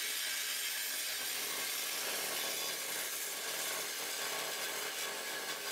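Corded DeWalt reciprocating saw (Sawzall) running steadily as it cuts through an aluminium flange with a deliberately bent blade. The result is an even, high, hissing buzz.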